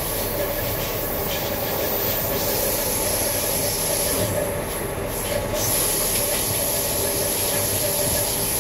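Steady running noise inside a locomotive cab as the train travels along the track, with a high-pitched whine throughout.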